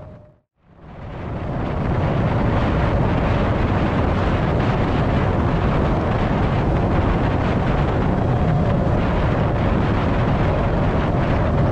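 Wind rushing over an action camera's microphone on a road bicycle descending at about 50 km/h, a steady roar. It dips to silence just after the start and swells back up over the next second or so.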